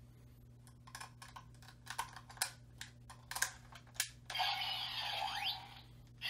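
Sharp plastic clicks as soul pieces are slotted into a DX Max Ryusoul Changer toy. About four seconds in, the toy's small speaker plays an electronic sound effect with a sweeping tone, about a second and a half long.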